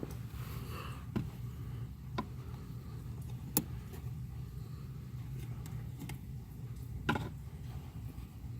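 Scattered light clicks and knocks from handling parts under a car's dashboard near the brake pedal, over a steady low hum.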